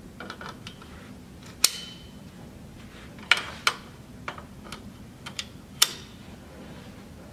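Metal swing-frame tubes clicking and knocking as the front base tube is pushed into the side base tubes: a string of sharp, separate clicks, the loudest about one and a half seconds in with a brief metallic ring after it.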